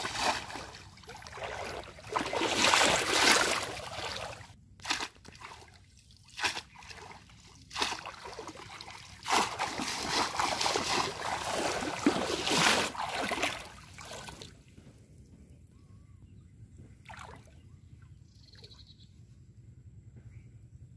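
Shallow water splashing and sloshing in repeated bursts as legs wade through it and a bamboo polo fish trap is plunged down into it. The splashing stops about two thirds of the way through, and it goes much quieter.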